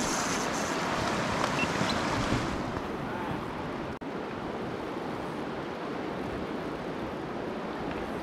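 River water rushing over a shallow riffle, a steady noise. It turns duller about two and a half seconds in.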